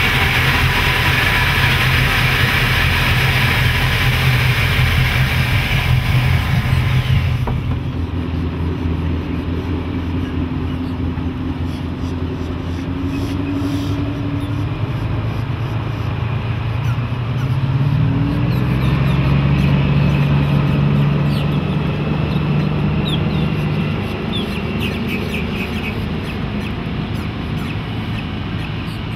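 Twin MerCruiser 7.4L MPI big-block V8 inboards running at idle, heard close up from the open engine bay. About seven seconds in, it gives way to the same boat running at speed across open water, heard from the shore. Its engine note rises and falls as it passes.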